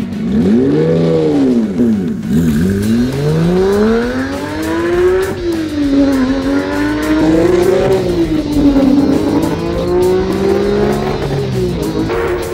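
Porsche 911 GT3 Touring's naturally aspirated flat-six engine revving hard, its pitch climbing and dropping several times as the car accelerates along the road.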